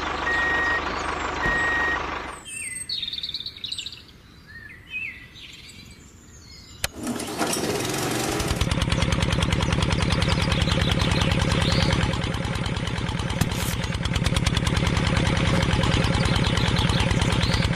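A vehicle engine starts about seven seconds in and then runs steadily with a fast, even rhythm. Before it comes a quieter gap with a few bird chirps. At the start there is a noisy stretch with a short repeating beep.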